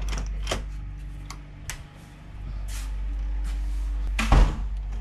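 A metal door lever handle pressed and the latch clicking as a wooden door is opened, followed by scattered clicks of footsteps and camera handling, with a heavier thump about four and a half seconds in. A steady low hum runs underneath.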